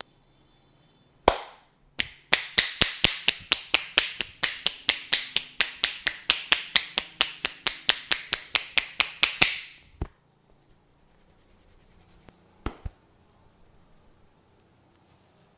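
Tapotement massage: the masseur's hands striking the client's body in quick rhythmic slaps, about four a second for some seven seconds. A single strike comes just before the run, and a few lone strikes follow it.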